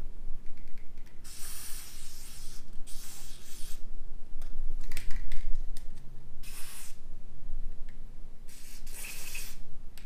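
Aerosol can of white lithium grease spraying through a straw nozzle into garage door hinge pivots. It goes in about five short hissing bursts, the first and last the longest, at a second or so each.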